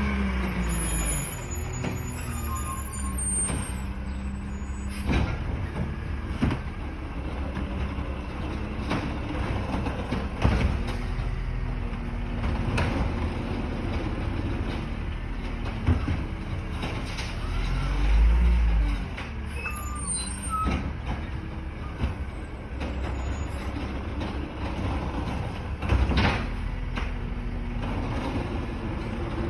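CCC LET2 garbage truck with a Pendpac body working a trash route: the diesel engine runs and revs up and down, with several sharp bangs and knocks and an air brake hiss.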